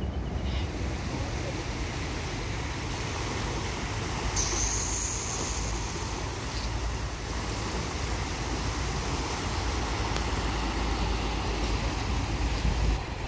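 Small waves washing in over rocks and sand, with wind rumbling on the microphone. A thin high tone sounds for about two seconds, starting about four seconds in.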